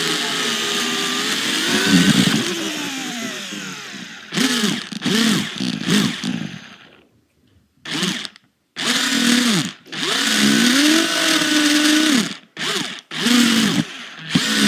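Toy RC car's electric motor and gears whining in bursts, the pitch rising and falling as the throttle is pushed and let off. It stops for about a second and a half near the middle, then runs in longer stretches.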